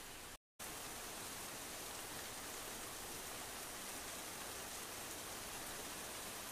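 Steady, even hiss with no distinct events, broken by a brief dropout to dead silence about half a second in.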